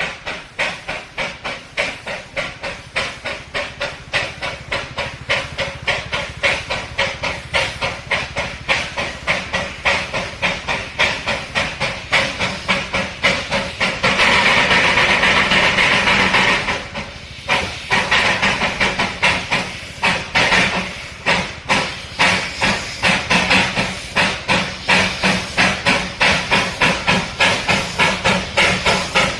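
Darjeeling Himalayan Railway narrow-gauge steam locomotive working hard, its exhaust chuffing in a steady beat that quickens from about two to about three beats a second. About fourteen seconds in, a long continuous hiss of steam covers the beat for some three seconds, then the chuffing resumes.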